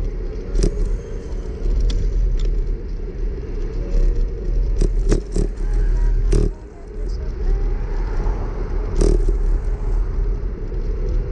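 Wind buffeting the microphone of a camera mounted on a moving bicycle, with tyre rumble on the road surface and a few sharp knocks and rattles as the bike goes over bumps, several bunched together around the middle.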